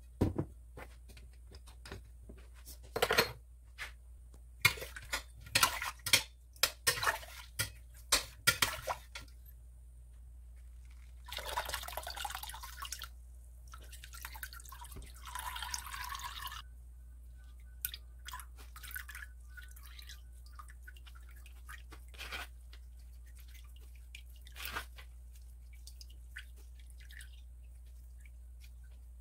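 A metal spoon clinking and scraping in a steel stockpot in quick sharp knocks, then liquid poured twice through a mesh strainer into a plastic tub, followed by scattered drips and light taps.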